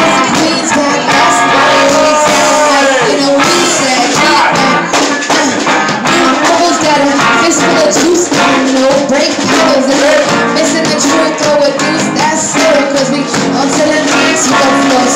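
Loud live band music: a drum kit with cymbals keeps the beat under a vocal line sung or rapped into a microphone through the PA.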